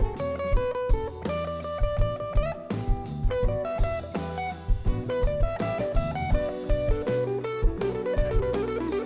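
Live blues-rock band playing without vocals: an SG-style electric guitar plays a single-note lead line, with a note bent upward a little past two seconds in, over bass guitar and a steady drum-kit beat.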